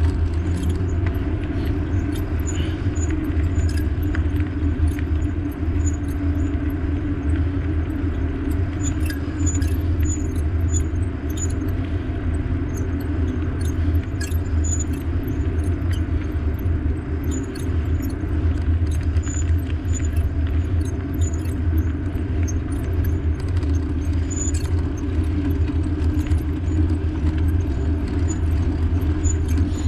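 Steady riding noise from a bike in motion: a continuous low rumble of wind and road, with light rattling and scattered small ticks throughout.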